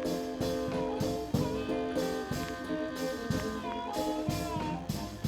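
Blues song playing: an instrumental stretch between sung lines, guitar notes over a steady drum beat.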